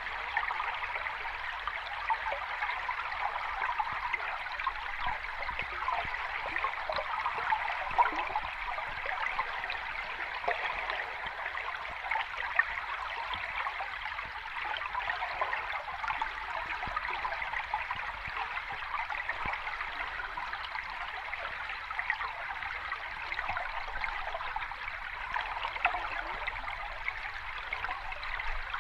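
Water of a small cascading stream running steadily over rocks, a continuous rush dotted with many small splashes and trickles.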